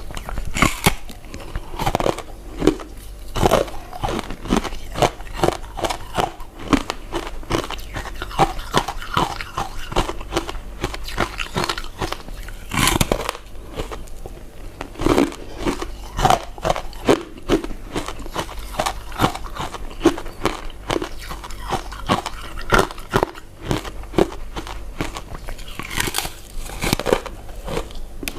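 A person biting and chewing chewy glutinous rice desserts, with a continuous irregular run of short mouth clicks.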